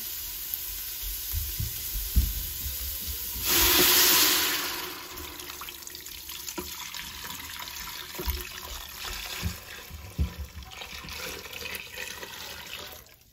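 Broth being poured back into a pot of sautéing onions and celery: liquid hissing and splashing onto the hot vegetables, loudest for a second or so about three and a half seconds in, then settling to a quieter simmering hiss with a few small knocks.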